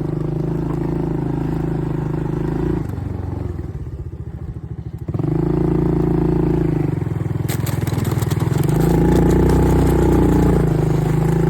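ATV engine running under throttle, easing off to a slow, pulsing idle for a couple of seconds about three seconds in, then pulling strongly again. Clattering and scraping about seven to nine seconds in.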